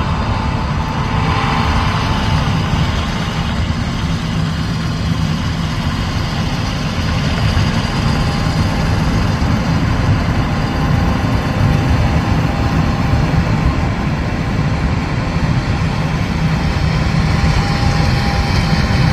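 Heavy diesel harvest machinery running steadily: a low engine drone with a thin, steady whine above it.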